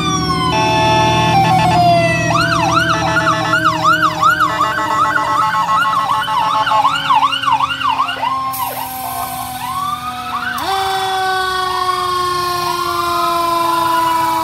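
Fire engine sirens sounding together. An electronic siren yelps up and down about twice a second, over a siren tone that slowly falls in pitch.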